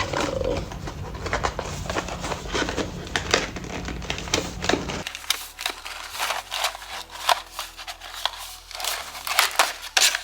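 Packaging being handled: crinkling and rustling with many small clicks and taps as the parts of a nail e-file kit are unpacked. A low rumble underneath stops about halfway through.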